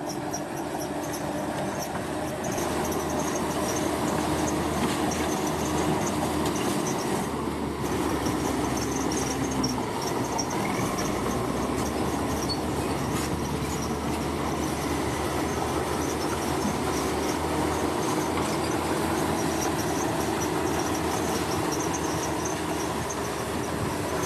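Heavy construction machinery running steadily, a continuous engine and mechanical drone with a few held tones.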